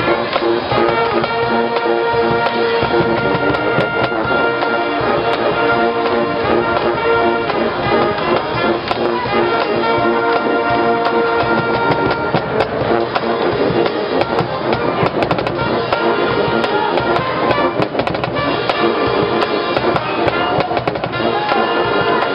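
Marching band playing: brass holding long notes over drums and mallet percussion, with sharp percussion strikes scattered through the middle.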